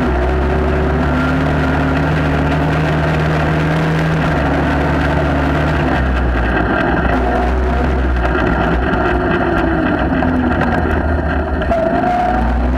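ATV engine running under way on a dirt trail, a steady drone for the first half, then rising and falling a little in pitch as the throttle changes, over steady rumble and noise from the moving machine.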